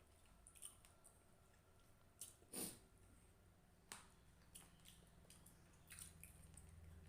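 Faint close-up eating sounds of a rice and hilsa fish curry meal: soft, wet chewing and smacking with scattered small clicks, one louder smack about two and a half seconds in.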